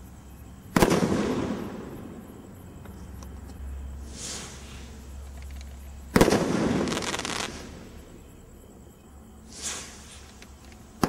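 BP1214 Corona firework shots going off one at a time, about every five and a half seconds. Each shot rises with a short hiss and bursts with a sharp bang and a second or so of crackle. Two full bursts are heard, a second rising hiss follows, and a third bang lands right at the end.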